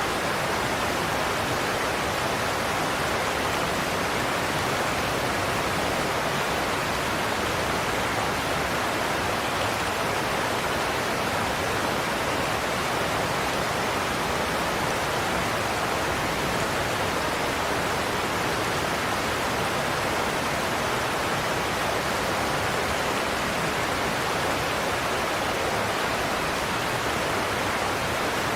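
Godafoss waterfall's cascades rushing steadily.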